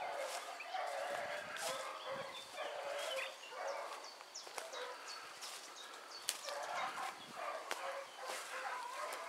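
Several dogs barking with overlapping voices, likely hounds working through the woods, with a few sharp snaps of brush or twigs close by.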